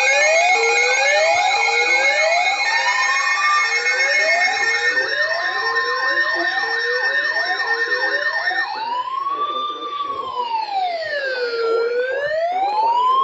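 Several sirens sounding at once: overlapping fast rising sweeps and steady alarm tones. About nine seconds in they give way to a single siren with a slow wail, rising and falling every few seconds.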